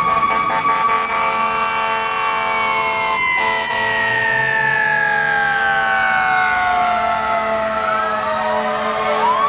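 Emergency-vehicle siren in a slow wail: its pitch rises a little, falls steadily over several seconds, then sweeps up again near the end, over steady held tones.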